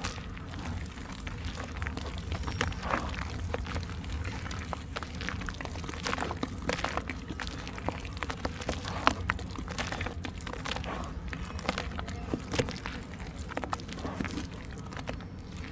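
Thick wet mud squelching as hands knead and squeeze it in a plastic basin of water, a continuous run of irregular wet pops and smacks.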